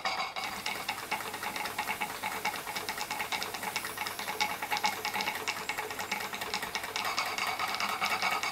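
Märklin 16051 compound twin-cylinder horizontal stationary steam engine running on live steam, with a fast, even ticking.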